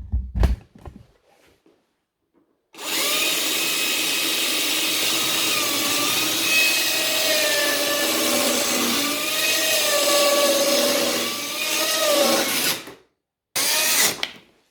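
Power tool working wood: its motor runs steadily for about ten seconds with the pitch wavering up and down under load, then gives a short second burst near the end. A few knocks come in the first second.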